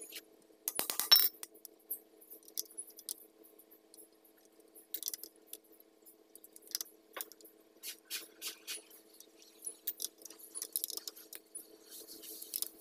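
Scattered light metallic clinks and taps of a socket wrench and extension on the oil pan bolts of a Perkins four-cylinder engine, with a brief louder rattle about a second in, over a faint steady hum.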